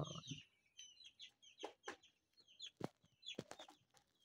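Baby chicks peeping faintly, with short high cheeps scattered throughout, alongside a few light knocks.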